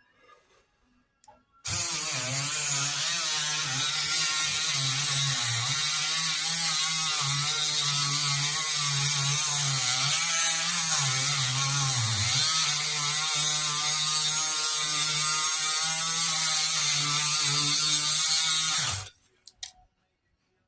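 12-volt EZE LAP diamond chainsaw sharpener, a small Dremel-type rotary tool, running and grinding the chain's teeth: a steady motor whine with a high grinding hiss. The pitch wavers and dips now and then. It switches on about two seconds in and cuts off abruptly near the end.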